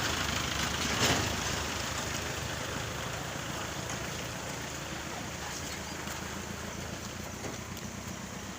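Rushing floodwater and falling rain: a steady wash of noise, with a brief louder burst about a second in.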